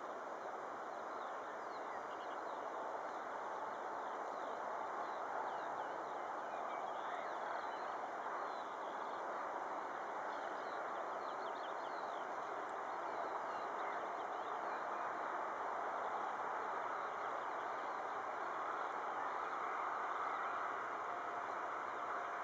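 Boeing 737-500's CFM56-3 jet engines running at taxi power: a steady rushing engine noise that grows slowly louder as the airliner taxis closer, with a faint whine coming in near the end. Birds chirp faintly over it.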